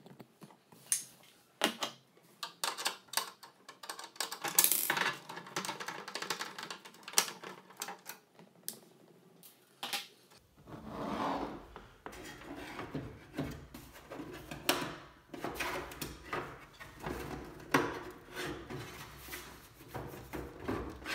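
Irregular clicks and knocks of a screwdriver and Phillips screws working on an exercise bike's plastic cover, with plastic tapping and scraping as the cover is handled.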